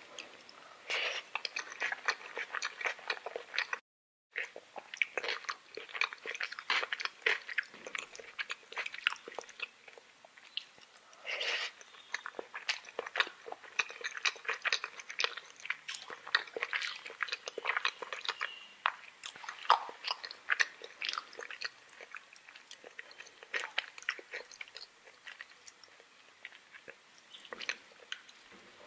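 Close-up chewing of food: a dense, irregular run of short wet clicks and crackles, with a brief break in the sound about four seconds in.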